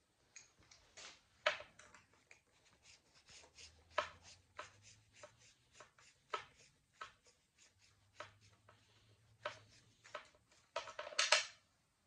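Irregular light clicks and taps of hands handling small metal and plastic parts and wires on an outboard powerhead. Near the end comes a louder burst of rustling and knocking as a coverall sleeve brushes against the phone.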